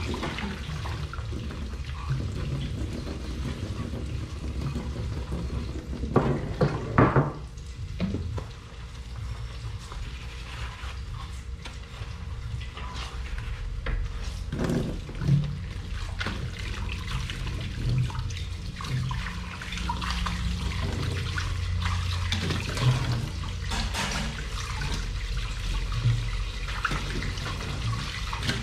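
Tap water running into a kitchen sink while dishes are washed, with scattered clinks and knocks of dishes and pans, a louder cluster about six to seven seconds in.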